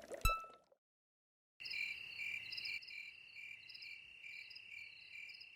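A brief plink right at the start, then silence, then from about a second and a half in a faint nighttime background of crickets chirping: a steady high trill with regular repeating chirps.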